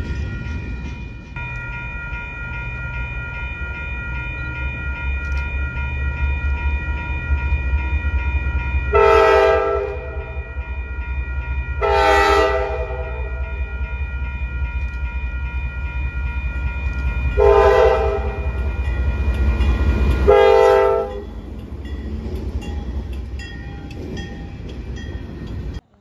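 Freight locomotive horn, MEC 7541's Nathan K5LA (listed as fouled), blowing the grade-crossing signal of two long, one short and one long blast over the steady rumble of the moving train. The rumble drops sharply about three quarters of the way through, just after the last blast.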